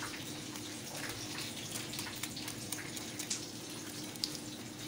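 Steady soft crackling hiss of hot oil frying, with small crisp clicks as a fried, breadcrumb-coated onion ring is pulled apart by hand.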